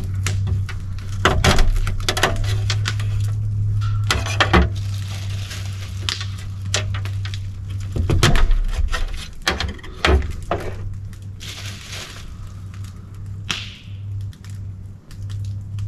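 Grouse being breasted out by hand and knife on a metal tailgate table: a run of sharp cracks, snaps and clicks as skin, feathers and bone are cut and pulled apart, with brief rustling and scraping between them.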